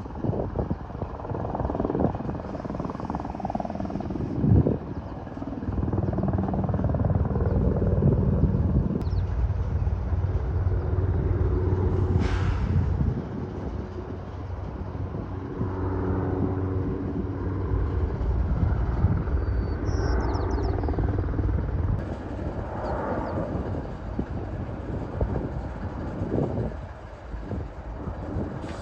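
Firefighting aircraft engine droning steadily overhead, a low hum that swells and fades twice.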